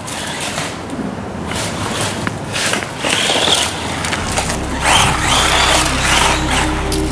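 Tamiya Bigwig RC buggy driving over rough ground: uneven bursts of tyre and drivetrain noise.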